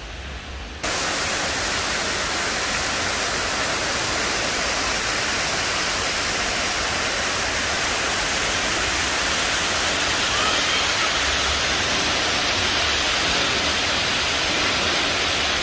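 Water pouring and spraying from a water-playground play structure and splashing into a shallow pool, a steady, loud, even hiss. It starts abruptly about a second in, after quieter outdoor background noise.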